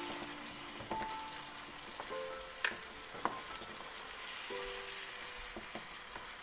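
Onion, tomato and spice masala sizzling in hot oil in a pan, with a few sharp clicks.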